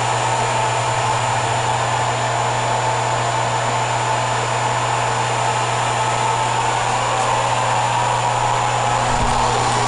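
A steady machine hum with a constant whooshing, fan-like noise over it, like an electric motor and fan running without change.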